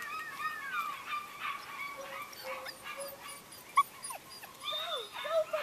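German Shepherd puppies, seven weeks old, whining and whimpering in short cries that slide up and down in pitch, with one sharp click a little past the middle.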